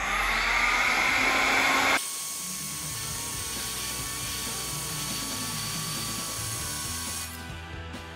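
Hot-air heat gun running, its motor whine rising as it spins up. About two seconds in the sound drops abruptly to a fainter hiss under background music.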